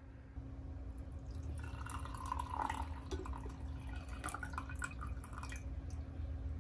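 Hot water poured from an enamel kettle into a ceramic mug, a splashing trickle that starts just after the beginning and stops about a second before the end.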